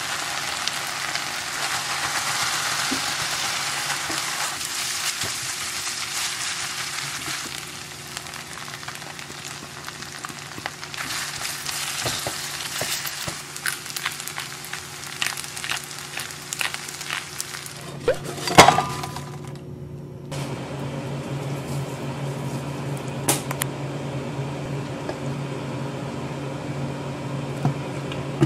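Fried rice sizzling in an enameled cast-iron braiser as rice and vegetables are stirred with a spatula, loudest for the first several seconds, then quieter with repeated clicks and scrapes of the utensil. About 19 s in comes a loud ringing clink, and after it a steady fan-like hum.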